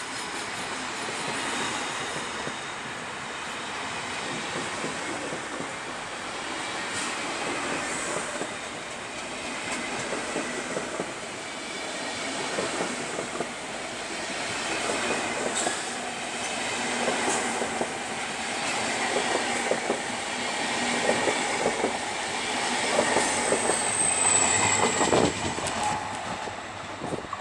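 SBB passenger trains rolling through the station: first a rake of double-deck coaches going by, then an Re 460-hauled train arriving. Wheels clatter over rail joints and points, growing louder in the second half, and a brief high wheel squeal sounds near the end.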